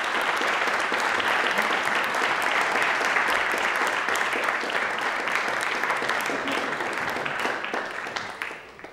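Theatre audience applauding: dense, steady clapping that starts suddenly and thins out near the end.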